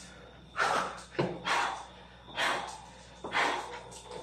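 A man breathing hard from the exertion of Navy SEAL burpees: loud, forceful breaths about once a second, with a short knock a little over a second in.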